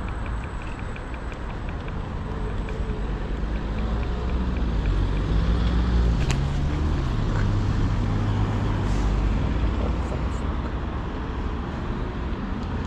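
Road traffic heard from a moving electric scooter. A car drives past close by, loudest about halfway through, its engine note rising and falling. Under it runs a low rumble of wind on the microphone.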